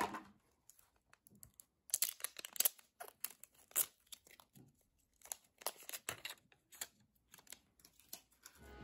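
Plastic packaging crinkling and crackling in irregular bursts as a replacement phone battery is unwrapped and handled.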